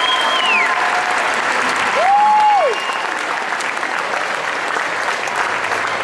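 Audience applauding steadily after a school concert band's performance. A shrill whistle falls away in the first second, and a shorter, lower whistle rises and falls about two seconds in, the loudest moment.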